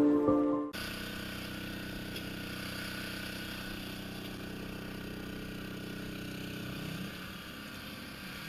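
A small engine runs steadily at an even pitch, which rises briefly near the end. The tail of an intro music jingle cuts off just under a second in.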